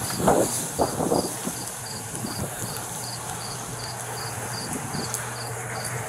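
Crickets chirping in an even rhythm of about two and a half chirps a second over a steady low hum, with a couple of brief scuffing sounds in the first second.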